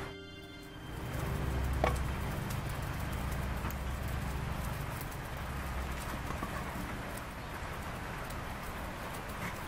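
Rain falling steadily: an even hiss with scattered drip ticks, and a low rumble underneath for the first several seconds.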